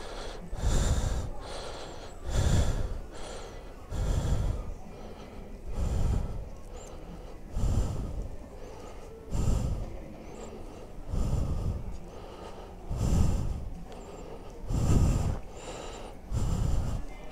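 A person breathing heavily and evenly close to the microphone, about one breath every two seconds.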